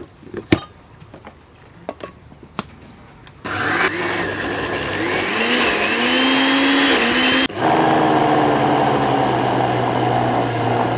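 A few light knocks, then an electric blender starts about a third of the way in, grinding steamed mung beans into a thick paste, its pitch wavering. It cuts out briefly about halfway, then runs again at a steadier pitch until the end.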